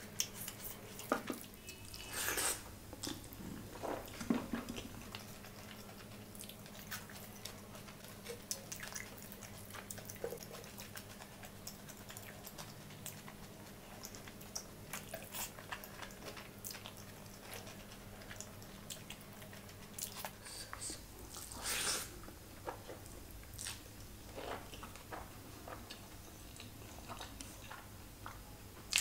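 Close-miked eating: wet chewing of hand-fed mouthfuls of rice with paneer gravy, with soft mouth clicks and a few louder smacks, over a low steady hum.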